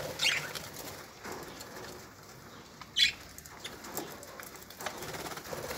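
A flock of budgerigars chirping and chattering, with two louder sharp chirps, one just after the start and one about three seconds in, and wings fluttering.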